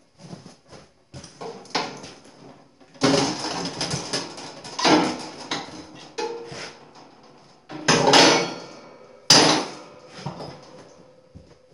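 Steel parts of a stripped-down Miller Gold Star 500SS welder being pried and knocked with a steel bar: a series of sudden, ringing metal clangs and knocks, the loudest about three, five, eight and nine seconds in.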